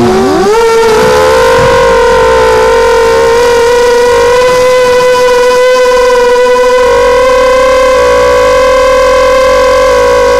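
The six Tiger MN1806-2300kV brushless motors and propellers of a hexacopter whining loudly, as heard from its onboard camera. Right at the start the pitch drops sharply as the throttle comes off through a flip, then it climbs back within about a second and holds a steady whine that edges slightly higher as the craft gains height.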